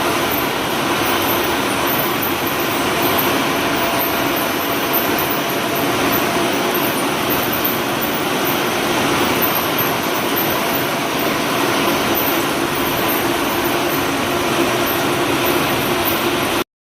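Wire-production machinery running, a steady dense mechanical noise with a faint hum in it; it cuts off suddenly near the end.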